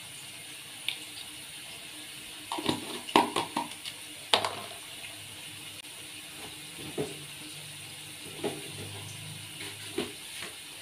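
Kitchen handling noises: a quick cluster of clinks and knocks from spice containers and a spoon, then a few single knocks, over a steady hiss that fits potatoes frying in oil.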